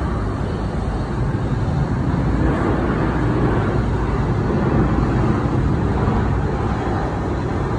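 Jet airliners running on the airport apron and taxiway: a steady, dense engine noise that swells a little toward the middle and eases slightly near the end.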